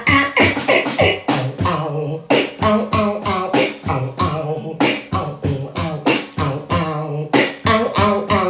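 A person beatboxing: quick rhythmic percussive mouth sounds with sharp clicks and hissing snares, mixed with wavering sung vocal tones.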